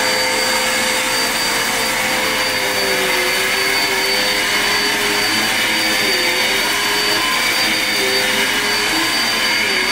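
Bagless upright vacuum cleaner running steadily on carpet. Its hum dips in pitch every few seconds as it is pushed back and forth.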